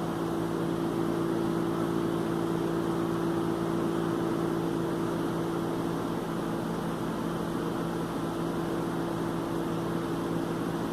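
A small motor running with a steady, unchanging hum: a low tone with a second one an octave above, over an even hiss.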